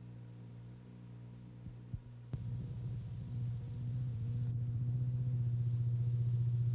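Steady electrical hum and buzz on an old broadcast videotape's sound track, with a thin high whine above it. A click comes a little over two seconds in, after which the hum grows louder.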